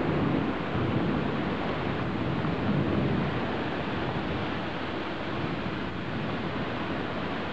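Heavy rain pouring down steadily, a constant wash of rainfall on the street and trees.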